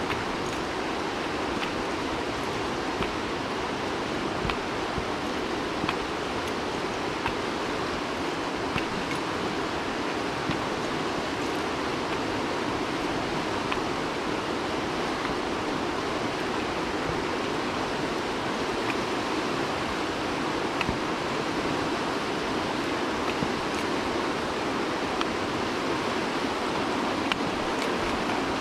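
The Lehigh River in flood, running high and fast after heavy rain: a steady, even rush of whitewater, with a few faint ticks now and then.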